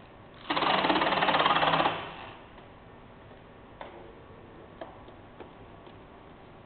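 Splicing tape pulled off a dispenser in one quick buzzing rip lasting about a second and a half, followed by a few light clicks of handling.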